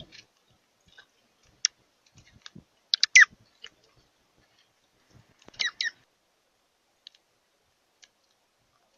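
Bird calls: short, sharp, downward-sliding calls mixed with clicks. A cluster comes about three seconds in and a pair of calls near six seconds, with a few faint clicks between them.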